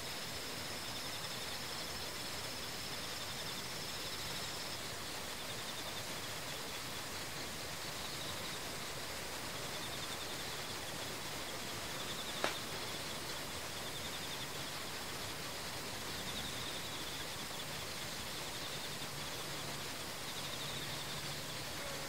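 Outdoor ambience: a steady hiss with insects trilling in short, rapid, high-pitched pulsed bursts that recur throughout. A high steady note stops about five seconds in, and a single sharp click comes about halfway.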